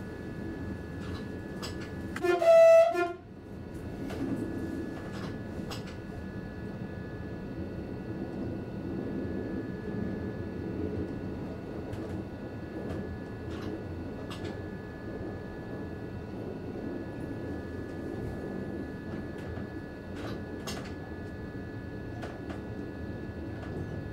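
Passenger train's horn gives one short blast about two seconds in, the loudest sound here, over the steady rumble of the train running along the track, with a steady high whine and occasional clicks.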